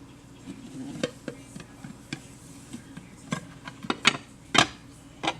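Ceramic Rockcrok Everyday Pan and a plate knocking and clinking together as the pan is flipped over onto the plate to turn out a cake: a string of sharp knocks, the loudest about four and a half seconds in.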